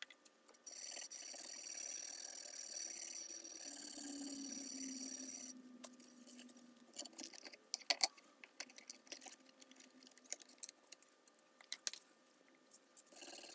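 A faint steady hiss for about five seconds, then scattered light clicks and taps of a blade and hold-down clamp being handled on the bench.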